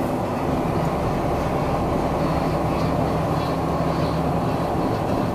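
Steady engine hum and road rumble of a car driving slowly.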